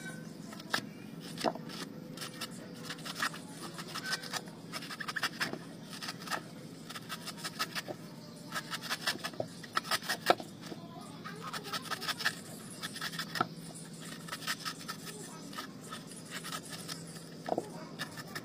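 Small knife shaving the fibrous white husk of a young coconut: runs of quick scraping strokes with short pauses between them.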